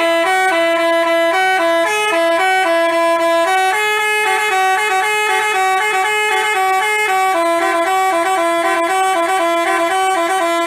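Basuri telolet bus horn playing a fast melody in two voices, the notes stepping up and down several times a second, then cutting off abruptly.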